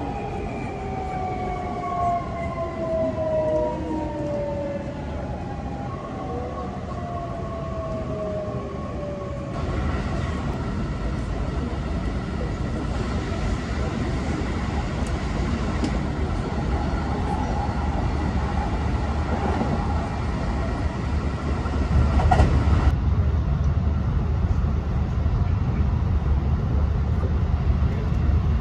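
Hankyu 2300 series electric train's motor whine, several tones falling steadily in pitch as the train slows into a station. After an abrupt change, the steady rumble of the train running at speed, louder over the last few seconds.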